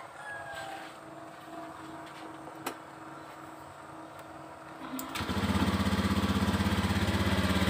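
Honda Beat scooter's 110 cc single-cylinder engine starts about five seconds in and settles straight into a steady, evenly pulsing idle. It is running on injector cleaner pushed by compressor air pressure from an infusion tube, with the fuel pump unplugged, to flush the injector. Before it starts there is only faint background and a single sharp click.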